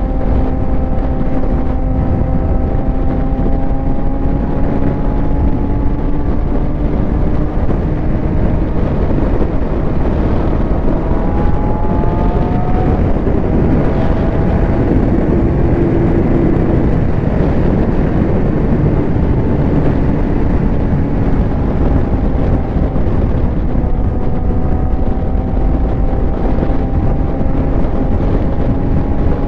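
Suzuki GSX-R750 motorcycle's inline-four engine running at freeway speed. Its note rises slowly, eases off in the middle with a few short climbs in pitch, and rises again near the end, over a steady rush of wind.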